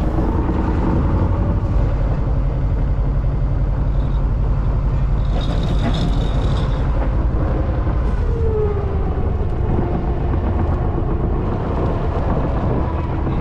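Steady low rumble of a sailboat's inboard engine while motoring, with a brief higher clatter about six seconds in.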